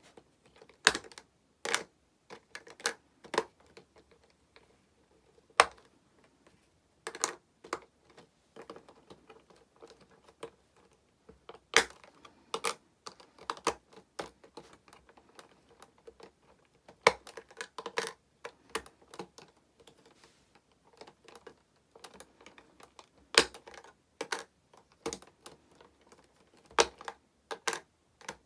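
Irregular sharp clicks and taps of hard plastic being handled, a few every second or two, with some louder knocks.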